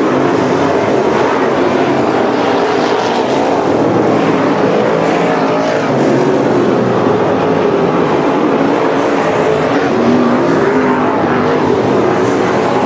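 Engines of a field of dirt-track modified race cars running together on the oval, a loud steady mix of engine notes that waver up and down as the cars circle.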